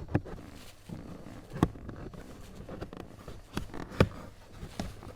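Irregular sharp clicks and knocks of a car's plastic interior trim being unclipped and pulled off beneath the glovebox, the loudest about four seconds in.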